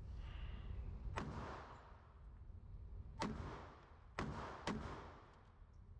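Four .22 LR pistol shots from a Beretta 21A firing CCI Stinger rounds, spaced unevenly, the last two about half a second apart, each with a short echoing tail.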